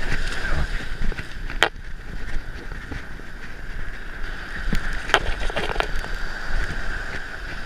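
Steady wind and surf noise on the microphone, with a few sharp clicks and rustles as hands work a lure's hooks out of a striped bass's mouth on the sand, one click about two seconds in and more near five seconds.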